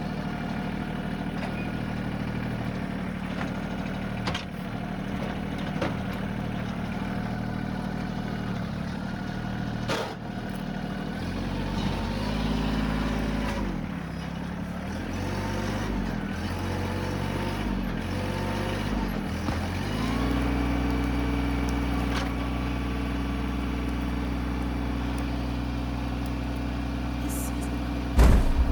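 Tractor engine running, its speed dipping and wavering for a while, then rising about two-thirds of the way in and holding steady. A few light clicks sound over it.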